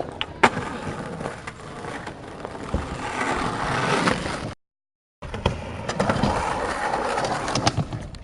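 Skateboard wheels rolling over pavement, with a sharp board clack about half a second in and smaller knocks later. The sound cuts out completely for about half a second around the middle, then the rolling starts again.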